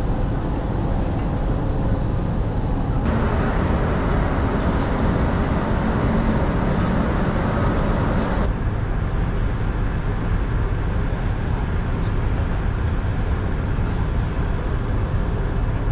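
Steady low rumble and hiss of a moving vehicle. The hiss grows louder from about three to eight seconds in.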